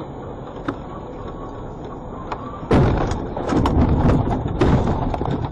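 Steady road rumble inside a vehicle's cab. About two and a half seconds in, a sudden loud thud is followed by a couple of seconds of heavy jolting rumble and clatter as the vehicle runs off the road into a snow bank.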